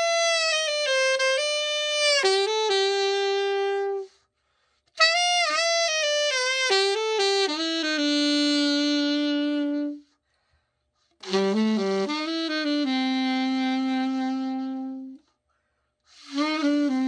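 Yamaha YAS-380 alto saxophone played solo in short melodic phrases. Each phrase steps down to a long held low note, and about a second of silence separates them: a play test of the horn after a full overhaul.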